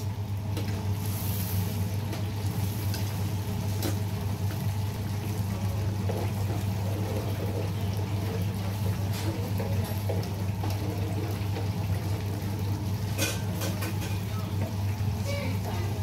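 Breaded chicken cutlets sizzling and bubbling in a deep fryer of hot oil, with scattered crackles over a steady low hum.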